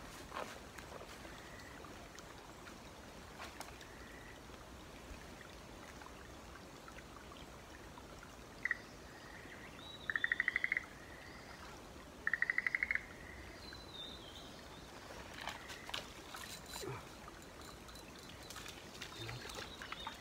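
A bird calling against quiet woodland ambience: one short note, then two rapid, fast-pulsing trills about two seconds apart, with a few faint chirps around them.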